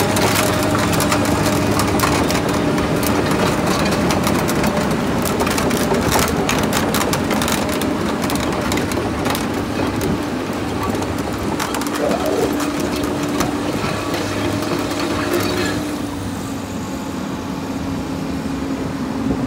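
Komatsu PC200 excavator's six-cylinder diesel engine idling steadily, with many short clicks and crunches over it. The sound drops somewhat in level for the last few seconds.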